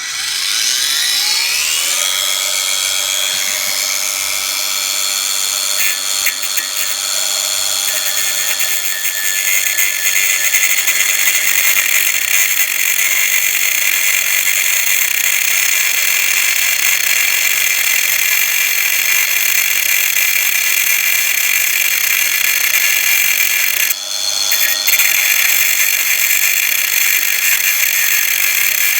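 Einhell TC-AG 18/115 Li-Solo cordless angle grinder with a cutting disc starting up, its whine rising in pitch over the first two seconds, then running steadily at full speed. A harsher, louder high hiss builds from about eight seconds in, and the sound dips briefly near the end.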